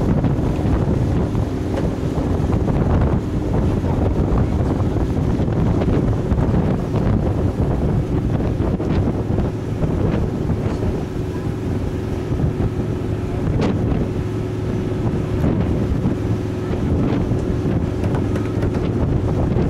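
Wind buffeting the microphone over the steady drone of a passenger boat's engine as the boat runs across open water, with occasional brief knocks and gusts.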